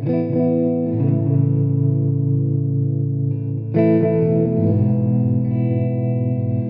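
Slow instrumental music of long sustained chords, each held for one to three seconds, changing near the start, about a second in, and a little before four seconds in.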